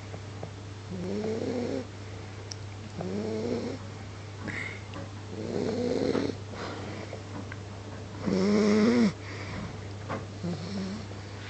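A sleeping pet making a squeaky, pitched noise on each breath, every two seconds or so, the loudest about three-quarters of the way through, over a steady low hum.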